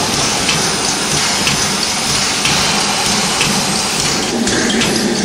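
Steam hissing steadily as it escapes from LNER B12 class 4-6-0 No. 61572, a standing steam locomotive.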